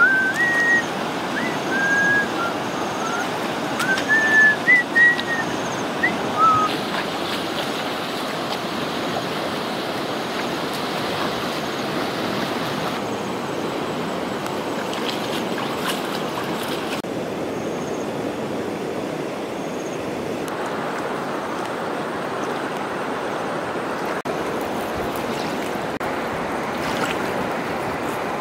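Steady rushing of water in a shallow, muddy stream. For about the first seven seconds, short whistled chirps from birds sound over it.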